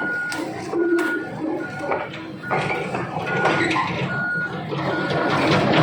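Komatsu PC78 excavator running, its travel alarm giving a short high beep a little more than once a second over engine and machinery noise, with some scattered knocks.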